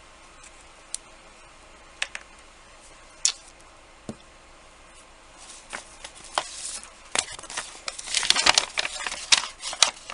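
Small craft supplies being handled on a work table: a few separate clicks and taps, then from about halfway a busier run of rattling and rustling that grows louder near the end.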